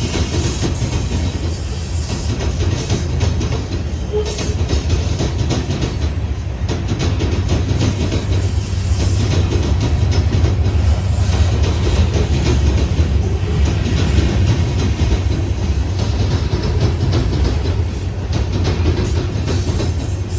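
Union Pacific freight train of two-bay covered hoppers rolling past, a steady low rumble with a continuous clatter of wheels.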